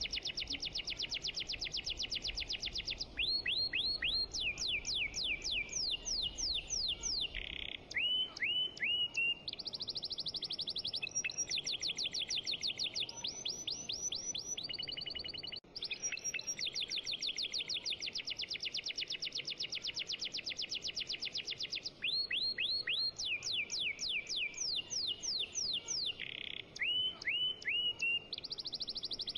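Birdsong from a looped recording: fast trills and rapid runs of high chirps, with the same sequence of phrases coming round again about halfway through.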